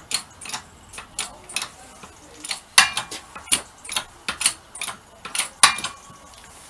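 Irregular sharp metal taps and clinks, about two or three a second, with the loudest a little under halfway through and another near the end: a hammer tapping on a wheel hub to drive out a bearing race.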